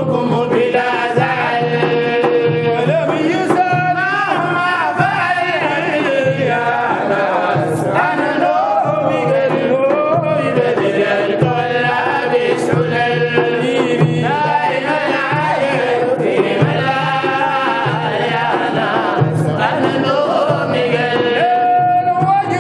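Sufi madih sung by male voices in a chanting style over a steady hand-drum beat.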